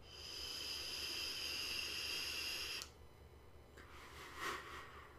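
Vape pen being drawn on: a steady hiss with a few high whistling tones in it, lasting nearly three seconds and cutting off sharply. About a second later comes a soft breathy exhale of vapour.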